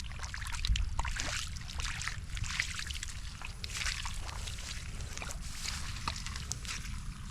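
Shallow floodwater sloshing and splashing in irregular bursts, over a steady low rumble.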